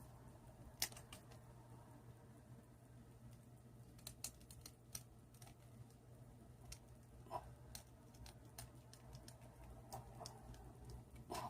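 Faint, scattered clicks and taps of plastic statue parts being handled and fitted together, over a low steady hum.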